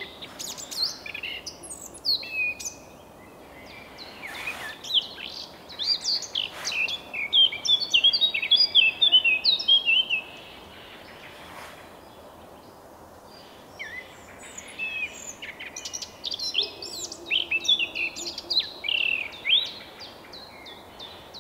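Eurasian blackcap singing its morning song: three phrases of rapid warbling, the middle one the loudest, with pauses of a few seconds between them.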